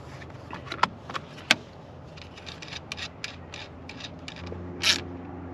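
Hands working at a car battery's positive terminal: the red plastic terminal cover lifted and a cable lug and nut handled on the terminal studs, a string of small metallic clicks and plastic scrapes with one sharper click about a second and a half in.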